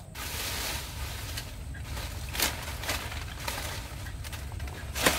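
Dry grass and weed stalks rustling and crackling as they are grabbed and pulled up by hand, with a few sharp snaps of breaking stalks, the loudest near the end.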